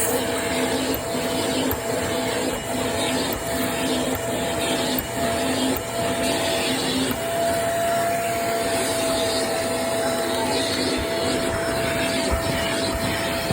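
Vacuum cleaner running steadily on stairs, a constant motor whine over the rush of suction, its sound pulsing at a regular rhythm.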